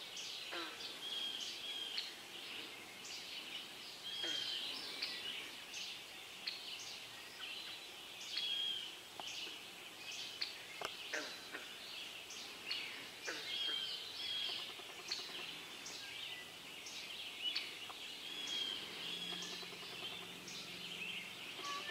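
Dawn chorus of many songbirds in northern woodland: overlapping short high chirps, trills and whistled phrases, with one phrase recurring every few seconds.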